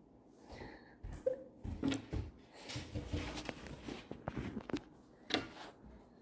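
Objects being handled: an irregular run of knocks, clicks and rustles, the sharpest knock about five seconds in.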